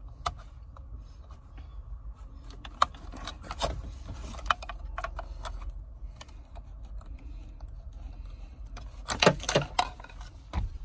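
Plastic clicks and small rattles of wiring harness connectors being unplugged from the back of a truck's dash bezel, with a louder clatter near the end.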